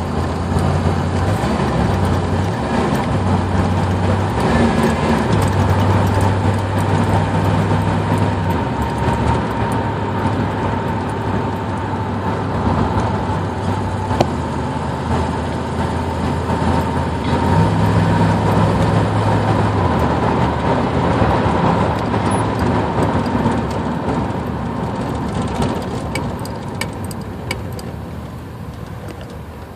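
Chevy 350 small-block V8 truck under way, its engine note stepping up and down in pitch several times as the faulty transmission acts up and will not downshift properly.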